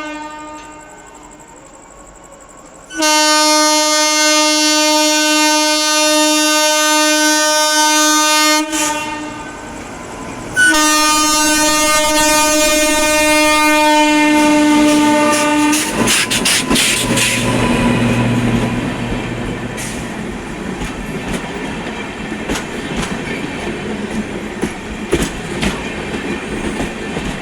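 Twin-tone horn of a WAP-7 electric locomotive sounding two long blasts of about five seconds each, with a short break between them. The express's wheels then clatter over the rail joints in a steady clickety-clack.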